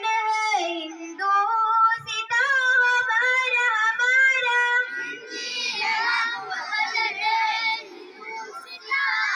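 Children's voices singing a song together in high, held notes. About halfway through, the singing gives way to many voices at once, rougher and less tuneful.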